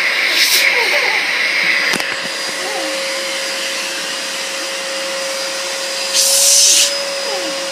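Vacuum cleaner running steadily. About two seconds in there is a knock and its sound changes to a steady hum. Two short hissy bursts come, one early and one about six seconds in.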